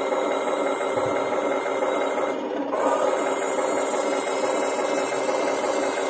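Henglong 1/16 RC Panzer III tank's electric turret traverse motor whirring through its gearing as the turret turns, over the model's sound unit playing a steady simulated engine running sound. The whir breaks off briefly about two and a half seconds in, then starts again.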